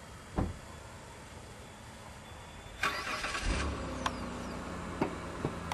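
Twin Pratt & Whitney TF30 turbofans of an RAAF F-111 on landing approach, heard from a distance as a steady jet noise whose low rumble grows louder about halfway through. A sharp thump comes near the start, a brief burst of hiss about three seconds in, and a few short knocks near the end.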